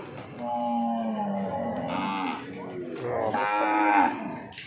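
Cattle mooing: two long calls, the second louder.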